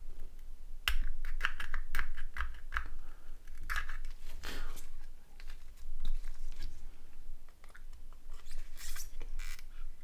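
Small plastic mobile-phone parts being handled and pressed together: irregular clicks and taps, with short scraping rustles about four and a half seconds in and again near nine seconds.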